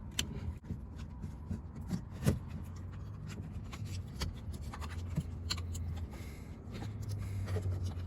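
Hand-handled plastic door trim parts rubbing and clicking: scattered light clicks and scrapes as the door's switch panel (control center) is fitted into place, over a low steady hum.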